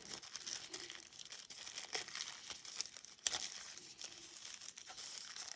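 Small plastic packaging bags crinkling as they are handled, with a few sharper clicks and crackles.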